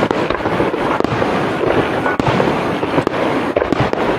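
Dense barrage of aerial fireworks: many shell bursts in quick succession, overlapping with continuous crackling and no pause.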